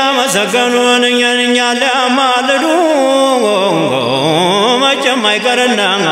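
A male voice chanting a menzuma, an Ethiopian Islamic devotional song, in long held notes with a wavering, ornamented pitch. About two-thirds through, the melody dips to a low note and climbs back.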